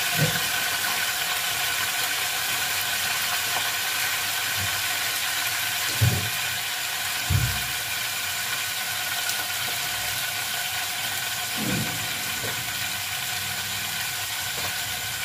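Fried onions and ginger-garlic paste sizzling steadily in hot oil in a metal pot, with a few dull low thumps.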